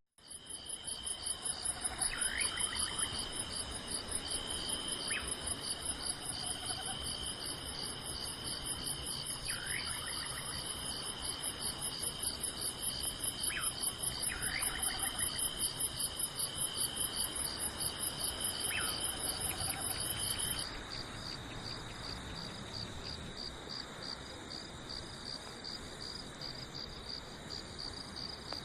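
Chorus of crickets and other insects trilling steadily, several high pulsing trills at once; the highest trill stops about two-thirds of the way through while the others carry on. A few short, faint chirps sound here and there.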